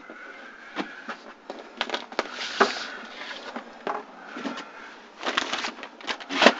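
Scattered clicks, knocks and rustling from a handheld camera being moved around a small room, with the sharpest knock near the end.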